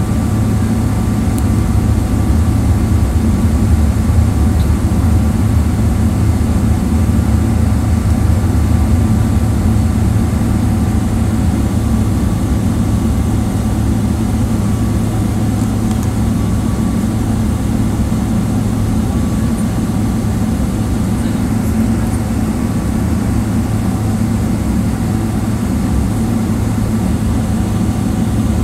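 Boeing 777-300ER's GE90 engines heard from inside the passenger cabin as a steady low drone with a faint whine over it.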